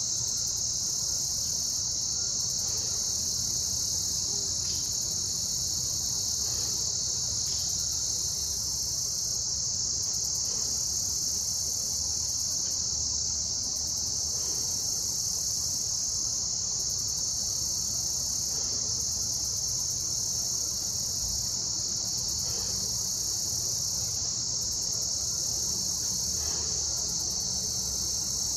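A steady, high-pitched chorus of insects, with a fainter, higher layer that cuts in and out every second or two.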